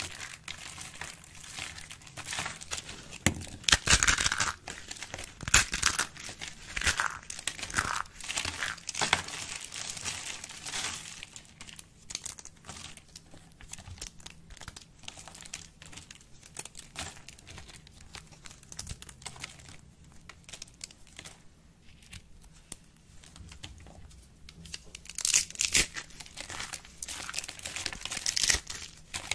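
Thin curls and flakes of dry bar soap being crushed and crumbled between the fingers: dense, dry crackling and crinkling. It is busiest from a few seconds in to about ten seconds and again near the end, and softer in between.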